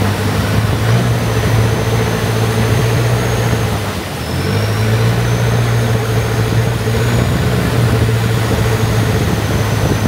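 Motorboat engine running steadily with a high whine over it, easing off briefly about four seconds in and then picking up again.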